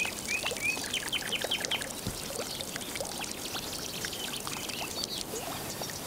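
Water pouring steadily from the spout of a stone wall fountain into its basin, with birds chirping over it, a quick run of chirps in the first two seconds and a few more scattered later.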